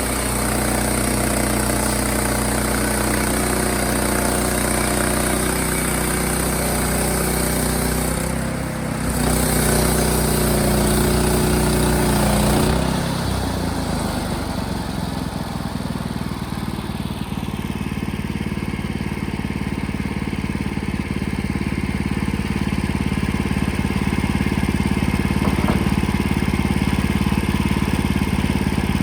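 Sawmill engine running steadily. It dips briefly about nine seconds in, and from about thirteen seconds in the sound turns lower and rougher.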